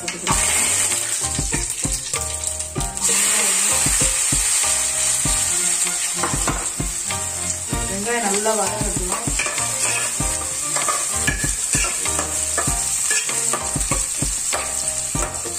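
Fennel seeds and chopped shallots sizzling in hot sesame oil in an aluminium pot, with a steady hiss and a steel ladle clicking and scraping as it stirs them. The sizzling gets louder about three seconds in, as the shallots go into the oil.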